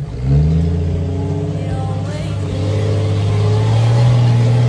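Rock buggy's engine revving hard under load as it climbs a steep rock face. It jumps up in pitch and loudness about a third of a second in, then holds high and steady.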